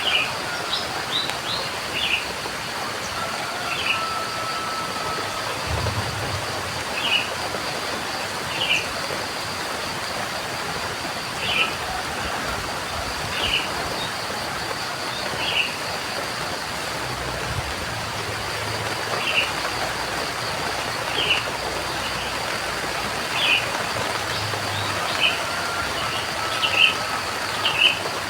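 Steady rain with a bird calling over it, a short call every second or two, and a few faint low rumbles.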